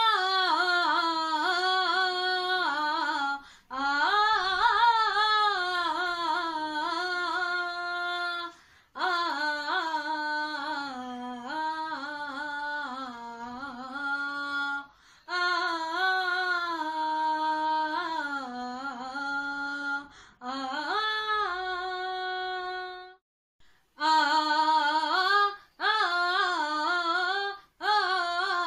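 A woman singing unaccompanied in long phrases, her voice sliding and wavering between held notes, with brief breaks between phrases.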